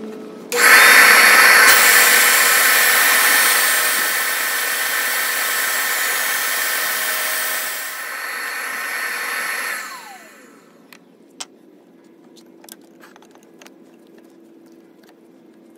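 Makita 4½-inch angle grinder with a diamond glass-cutting disc, starting up and cutting through a slowly rotating glass wine bottle: a loud, steady hiss and whine. About ten seconds in it is switched off and the whine falls as the disc spins down, followed by a few faint clicks as the cut bottle is handled.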